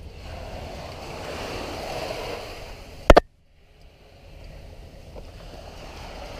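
Steady rush of surf along a beach. About three seconds in there is a single sharp knock, the loudest sound, and right after it the sound cuts out completely for about half a second before the surf noise returns.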